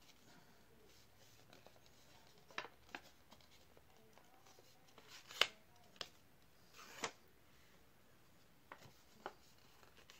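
Quiet handling of paper: a scattering of short rustles and creasing sounds as a small sheet of paper is folded, the loudest about halfway through.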